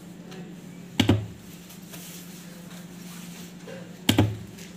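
Handheld spot welder's copper electrode pens firing weld pulses into nickel strip on lithium cells: two sharp sparking cracks about three seconds apart, each a quick double snap. The machine fires on its own on a 3-second timer once the pens are pressed down. A steady low hum runs underneath.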